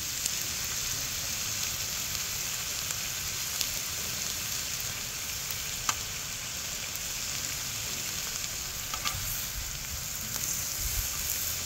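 Beef intestines, meat and button mushrooms sizzling steadily on a hot grill pan, with a few short clicks of metal tongs turning the food.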